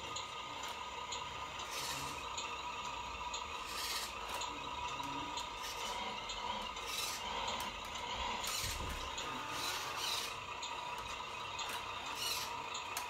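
Radio-controlled Mercedes-Benz Arocs model semi-truck with trailers driving slowly, with a steady mechanical running sound and a short hiss every few seconds, like the air-brake sounds of a model truck's sound unit.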